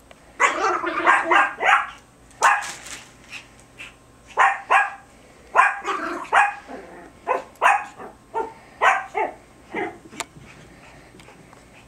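Biewer terrier puppies barking while they play: repeated clusters of short yaps that stop about ten seconds in.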